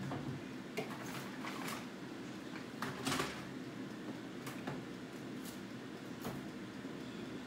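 Scattered light knocks and clinks of household handling, with a slightly louder clatter about three seconds in.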